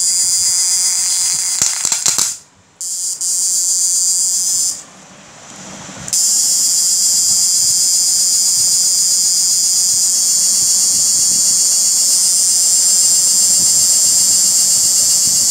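Homemade IGBT electrofishing inverter running with its electrodes in a bucket of salt water, giving a loud, steady high-pitched electronic whine while it works under load. The whine cuts out briefly about two seconds in and again for over a second around five seconds in, then runs on steadily.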